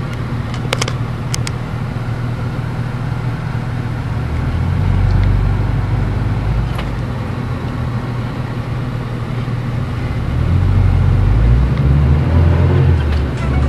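A vehicle's engine and running gear rumbling from inside the cab while driving over a rough dirt track, the engine working harder about five seconds in and again from about ten seconds in. A few sharp clicks or knocks come about a second in.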